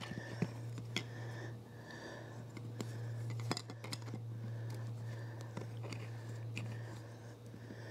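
Faint handling noise of hands working an inflatable kayak's valve and fabric skin: small scattered clicks and soft rustles over a steady low hum.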